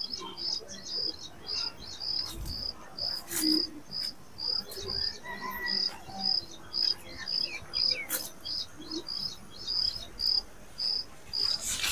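Steady, evenly repeated high-pitched chirping, about two and a half chirps a second, with a couple of brief rustles or clicks in between.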